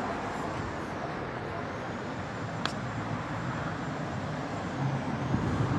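Steady low background rumble of outdoor ambience, with one sharp click about halfway through.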